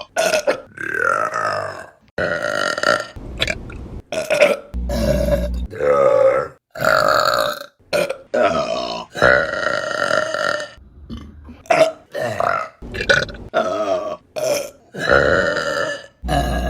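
A rapid string of women's burps from back-to-back compilation clips: many burps, some short and sharp, others long and drawn out, each cut off abruptly where one clip gives way to the next.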